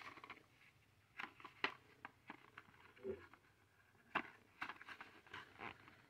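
Faint handling noise: a string of small clicks and taps as a Fenix E12 pocket flashlight and its clear plastic blister packaging are picked up and moved about.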